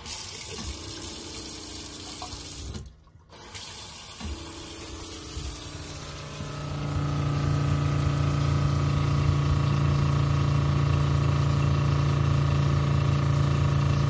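Water running from an open kitchen faucet while the RV's electric water pump runs to hold line pressure. The pump is now controlled by a newly fitted well-pump pressure switch. The sound drops out briefly about three seconds in, and from about six seconds the pump's steady motor hum is prominent.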